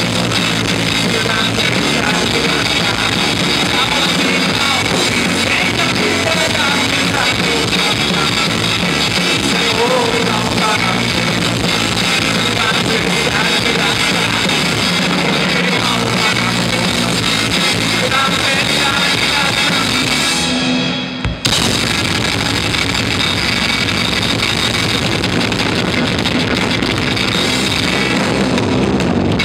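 Live rock band playing loud: electric guitars and a drum kit, with a momentary break in the sound about three-quarters of the way through.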